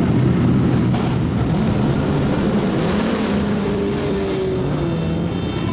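Touring race car engines running, a steady mechanical drone with the pitch drifting slightly downward about four seconds in.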